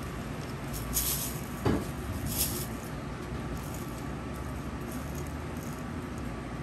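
Small plastic rhinestone boxes and bags being handled: two brief rustles and a single sharp click, like a plastic lid snapping, about a second and a half in, over steady low room noise.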